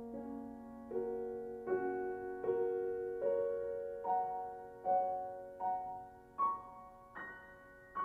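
Solo grand piano playing a slow, quiet passage: chords struck about once every 0.8 seconds, each left to ring and fade, growing softer near the end.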